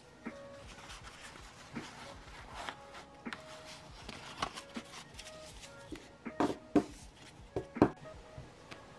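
Sheets and torn strips of thick 360 gsm paper being handled: rustling, with several sharp slaps or taps of paper against the table about six and a half to eight seconds in.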